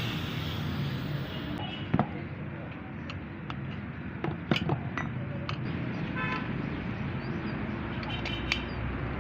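Street traffic noise with a short vehicle horn toot about six seconds in and a few sharp knocks.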